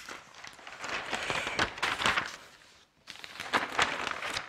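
Newsprint pages rustling and crinkling as a broadsheet newspaper page is turned over, in two bouts of a second or two each.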